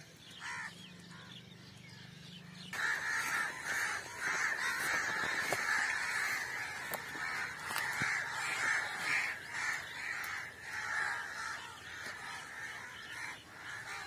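Many birds calling at once, a dense chorus of overlapping calls that starts abruptly about three seconds in and keeps going.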